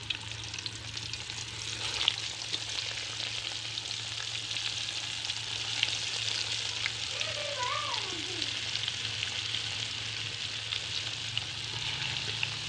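Whole bitter gourds (karela) deep-frying in hot ghee in an aluminium karahi: a steady crackling sizzle with small pops, which gets louder about two seconds in as the gourds go into the fat. A slotted metal spatula stirs and scrapes in the pan now and then.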